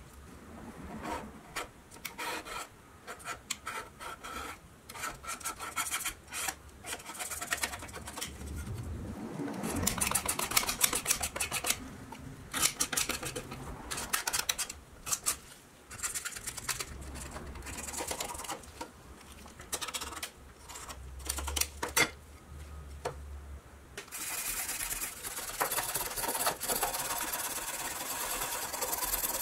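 A hand-held scraper blade scraping rust and worn paint off a small pressed-steel toy-truck plate in many short, irregular strokes. For the last five seconds or so a small brass wire brush scrubs the plate steadily.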